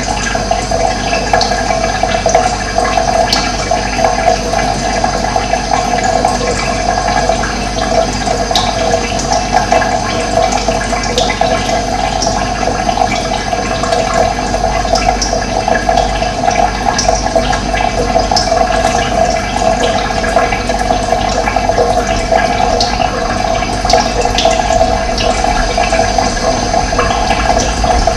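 Steady rush of running water, with faint short high chirps of birds now and then.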